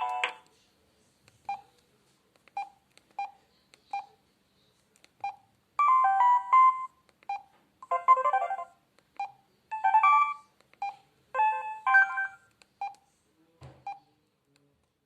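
Samsung SGH-C450 mobile phone: a polyphonic ringtone cuts off at the start, then single short key beeps follow about once a second. Between them come four short message-alert jingles, each under a second, previewed one after another, and a soft knock sounds near the end.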